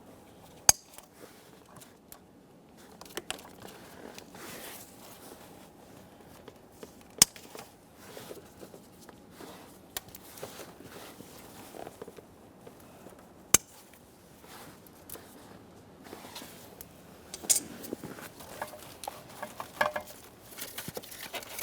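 Wire cutters snipping through plastic wire ties: three sharp snaps several seconds apart, with smaller clicks and rustling of the wiring harness being handled between them.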